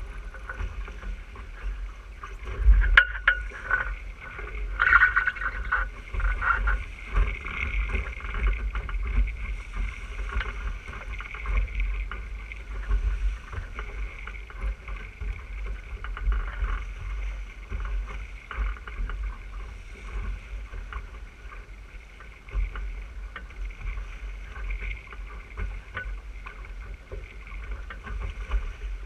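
Water rushing and splashing along the hull of an RS600 sailing dinghy under way, with wind buffeting the microphone as a constant low rumble. A few sharp knocks stand out about three and five seconds in.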